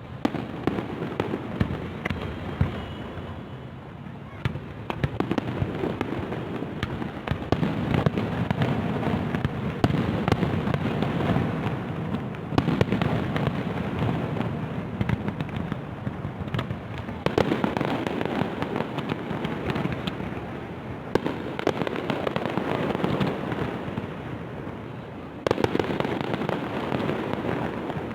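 Aerial fireworks display: a continuous crackle of many pops and bangs, with louder flurries of bursts now and then.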